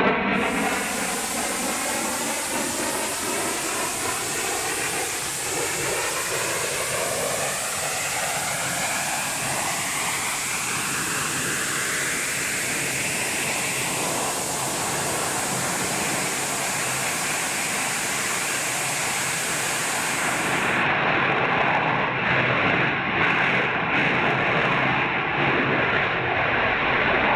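Armadillo Aerospace mod rocket vehicle's engine firing: a steady rush of exhaust noise, with a slow falling, phasing sweep through the first dozen seconds as the vehicle comes down. The noise grows louder about two-thirds of the way in as the vehicle nears the landing pad.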